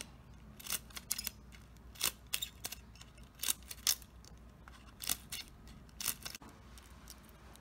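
Scissors snipping thin plastic bottle material, cutting a row of narrow strips into it: a series of short, sharp snips at an uneven pace, about one every half second or so.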